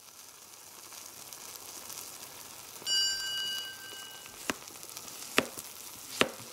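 Steady hiss of food sizzling in hot oil, fading in at the start. About two seconds in there is a short bell-like ding, and in the second half sharp clicks come about once a second.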